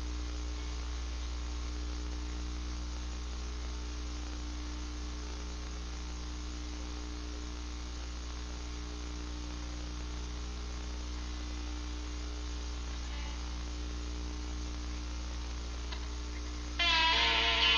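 Steady electrical hum with hiss, raised by boosting the volume of a low-battery camcorder recording. About a second before the end a guitar starts playing, suddenly and much louder.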